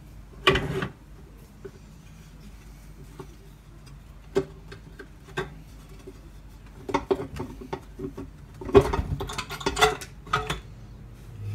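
Scattered metal clicks and knocks from the NP241DHD transfer case as its case halves are worked apart by hand. There is a sharp knock about half a second in, then single clicks every second or so, then a busier run of knocks and rattles in the last few seconds.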